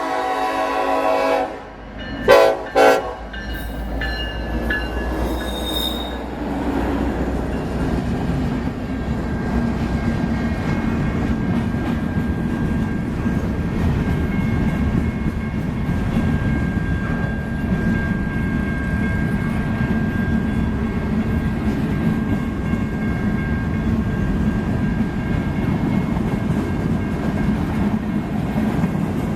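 Horn of a Union Pacific EMD SD70AH freight locomotive sounding a multi-note chord that cuts off about a second and a half in. It then gives two short, sharp blasts, and the tones die away a few seconds later. After that the train's cars roll past with a steady rumble and wheel noise, and a faint steady squeal runs underneath.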